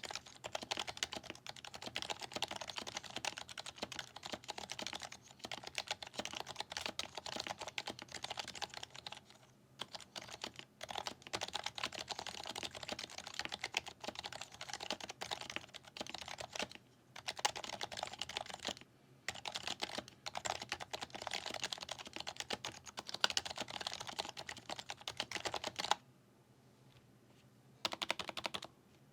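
Continuous fast typing on an HHKB Professional 2 Type-S Topre keyboard fitted with BKE Redux light domes and lubed switches, a dense run of soft key clacks. Typing pauses briefly a few times, with a longer break about 26 seconds in before it resumes.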